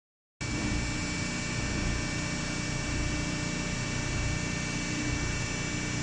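Hydraulic bagging baler's power unit, an electric motor driving a hydraulic pump, running steadily: a constant hum over a low rumble, with a thin high whine held at one pitch.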